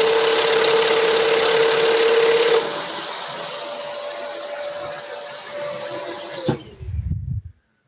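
Scroll saw running through a short trim cut in plywood: a steady hiss over a held hum. The hum changes pitch about two and a half seconds in, and the saw stops abruptly near the end, followed by a brief low rumble.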